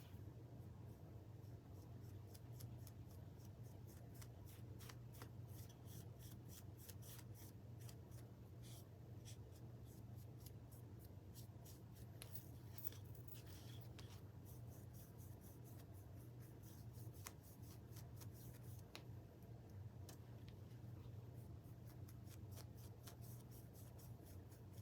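Faint, quick, scratchy strokes of paint being brushed onto a small wooden piece, over a low steady hum.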